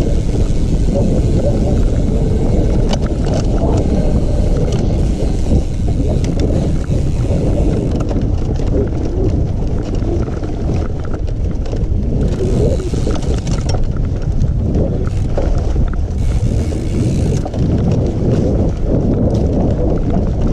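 Mountain bike ridden on a trail: wind rumbling on the camera microphone, with frequent knocks and rattles from the bike over rough ground.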